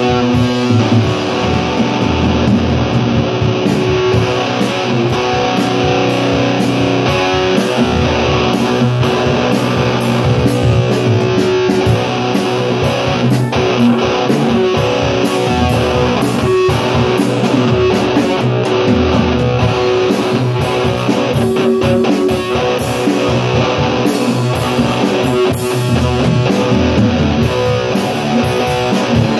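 Electric guitar played loudly through an amplifier, strummed and picked in a rock jam.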